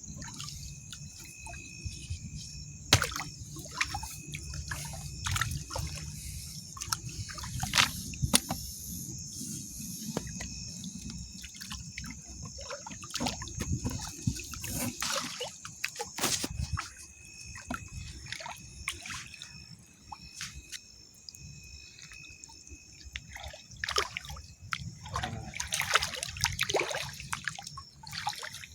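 Wading through shallow water: continuous sloshing and trickling, broken by irregular splashes, the sharpest about 3, 8 and 16 seconds in and a run of them near the end.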